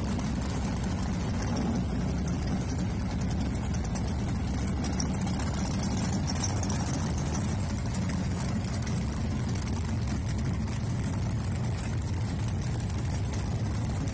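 Muscle-car drag racer engines idling with a steady low rumble, holding an even pitch without revving.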